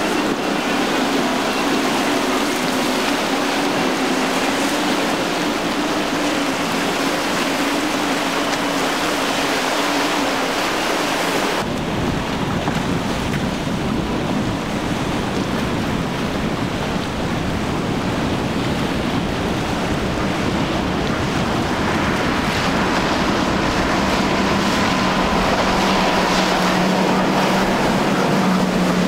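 Outboard motors driving fast center-console boats through choppy water: a steady engine drone over the rush of spray and waves. The sound changes abruptly about twelve seconds in to another passing boat, whose drone becomes lower-pitched toward the end.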